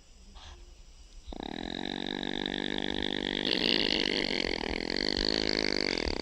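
Opossum snoring: after a short pause, one long, continuous drawn-out sound begins about a second in and holds at a steady level.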